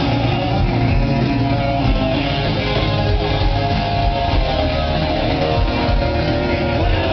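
Live rock band playing loud and steady, with strummed electric guitar to the fore.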